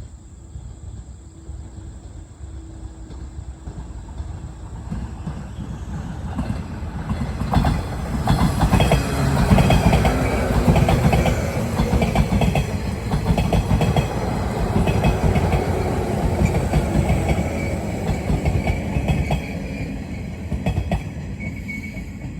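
Electric train approaching and passing at speed, a rumble that builds, is loudest about halfway through, then slowly fades. The wheels clack rhythmically over rail joints as the cars go by.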